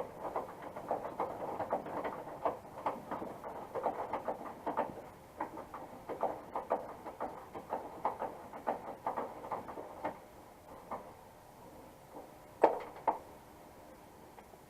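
Quick, irregular clicks and rattles of door parts being handled, ending with two sharp knocks near the end.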